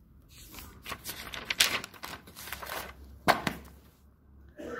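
Paper rustling as a spiral notebook's page is turned over and smoothed flat, with a sharp tap about three seconds in.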